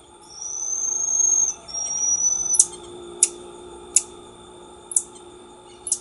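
Black-tufted marmoset calling: two long, high whistles, then five short sharp chirps spaced about a second apart.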